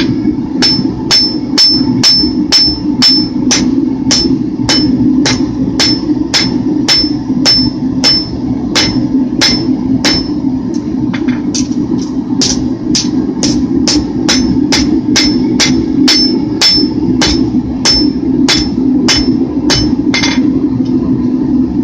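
Hand hammer striking hot steel on an anvil in a steady rhythm, about two blows a second, each with a short high ring, as a blade is profile-forged. A steady low hum runs underneath.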